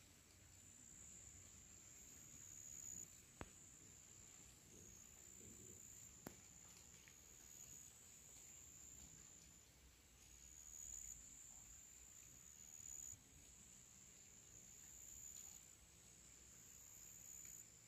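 Insects chirring faintly in a steady high-pitched buzz that swells and drops back every couple of seconds. Two brief clicks a few seconds apart.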